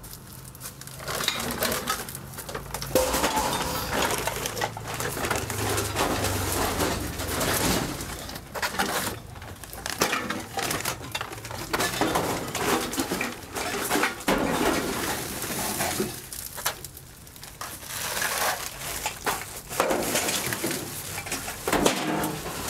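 Scrap iron and other metal pieces clattering, knocking and scraping as they are handled and loaded into a van, with many irregular metallic knocks and rattles. Birds call in the background.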